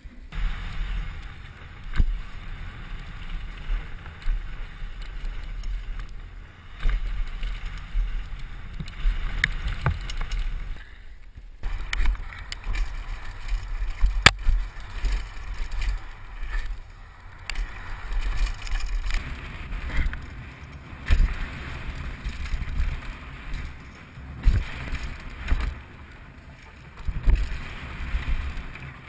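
Mountain bike riding fast down a dirt downhill trail, heard from a helmet camera: wind buffeting the microphone in a low, rising and falling rumble, with tyre noise and the rattle and knocks of the bike over rough ground, one sharp knock about halfway through.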